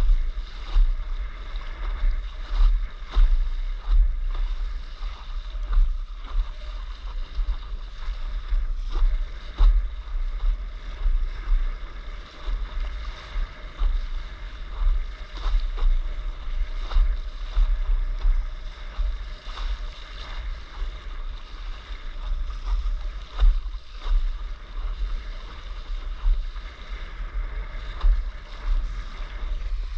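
Wind buffeting the microphone in gusts with a low rumble, over the continuous hiss and slap of water spraying off a windsurf board's nose as it sails through choppy sea.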